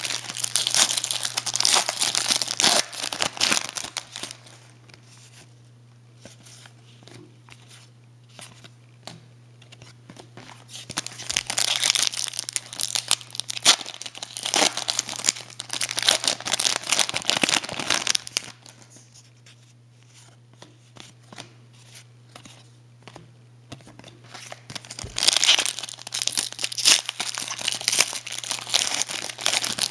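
Hockey card pack wrapper being torn open and crinkled by hand, in three spells of crackling: at the start, from about ten seconds in for several seconds, and again near the end, with quieter pauses between. A steady low hum runs underneath.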